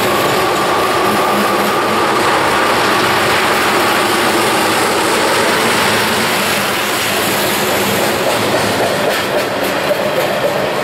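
Freight cars of a mixed freight train rolling past close by: a steady, loud rumble of steel wheels on rail. A faint ringing tone fades out in the first few seconds, and a few clacks come near the end.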